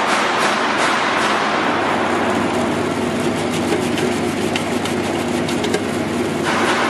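Electric vegetable slicing machine running: a steady motor hum with irregular sharp clicks over it.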